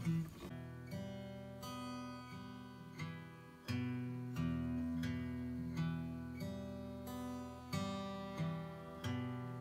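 Acoustic guitar playing a slow tune, with a new chord or note plucked every half-second to a second and left ringing; it stops suddenly at the end.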